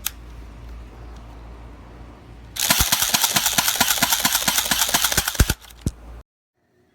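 Elite Force HK P30 electric blowback airsoft pistol firing a full-auto burst of about three seconds, a rapid run of plastic clacks, followed by a couple of single clicks. The blowback sound is, in the reviewer's words, the sound of plastic clacking together.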